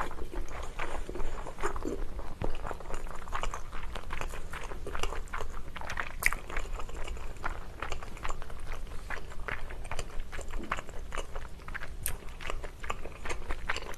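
Close-miked chewing of a mouthful of pasta, with many small, irregular wet mouth clicks and light crunches.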